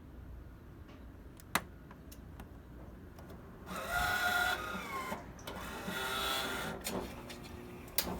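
Franke Evolution commercial espresso machine powering up: a click, then its internal motorised mechanism runs twice for about a second each, the pitch sagging as it runs, with another click near the end.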